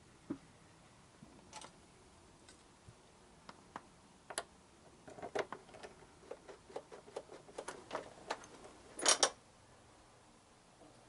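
Scattered light clicks, taps and small metal rattles of hands handling tools and parts on a motorcycle frame. The clicks come thicker a little past halfway, and a short, louder rattle follows about nine seconds in.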